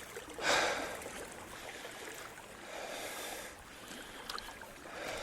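Kayak paddle blades swishing through creek water, a stroke every couple of seconds, over the steady wash of flowing water.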